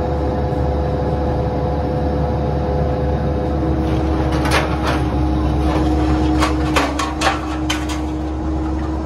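Bobcat 337 compact excavator's diesel engine running steadily with a whine. A second tone joins about three and a half seconds in as the arm works. Between about four and eight seconds in come a string of sharp clanks as the bucket knocks against scrap sheet metal.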